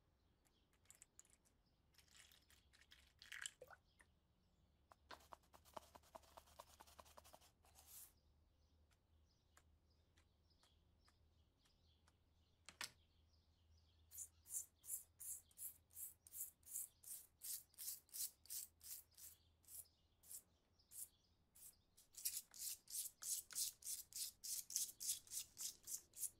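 Stiff-bristled brush scrubbing rusty brass cartridge-case parts in a tub of soapy water, in rhythmic back-and-forth strokes at about two to three a second, then faster near the end. Before that, only a few scattered scrapes and splashes.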